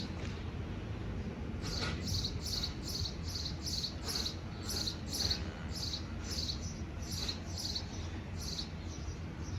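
A small bird chirping over and over, two or three short high chirps a second, starting about two seconds in, over a low steady rumble.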